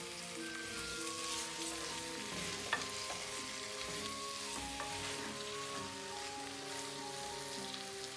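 Rabbit pieces frying in olive oil with onion and garlic in a pot: a steady sizzle as the meat is browned on the outside, with one light knock about three seconds in.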